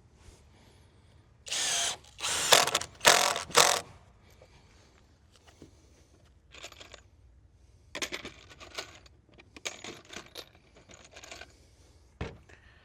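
Tool work on wooden shed decking: four short loud bursts in quick succession, then a scatter of small clicks and knocks and one sharper knock near the end.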